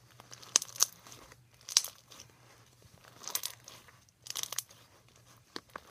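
Crunchy foam-bead slime being squeezed and folded in the hands, the foam beads crackling in several short crunchy bursts with quiet gaps between.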